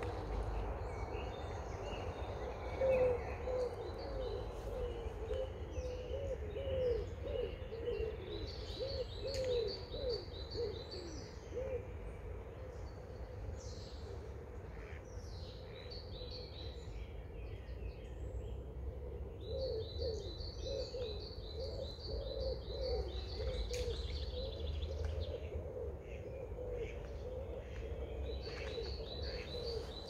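Several birds singing outdoors. High, rapid trills recur a few times over runs of low, repeated call notes, with a steady low rumble underneath.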